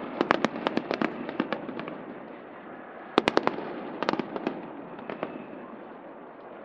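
Aerial fireworks going off as a run of sharp bangs and crackles for about two seconds. A second cluster follows a little past three seconds in, then scattered pops that thin out toward the end.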